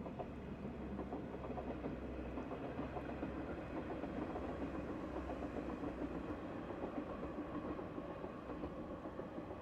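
Short diesel railcar train crossing a river bridge, heard at a distance: a steady rumble of engines and wheels on the bridge, with clickety-clack from the rails.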